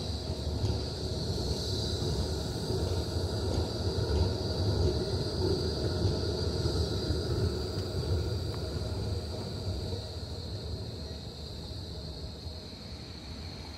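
Melbourne E-class low-floor tram rolling past at close range: a low rumble of steel wheels on the rails with a steady high whine over it. It is loudest mid-pass and fades a little near the end.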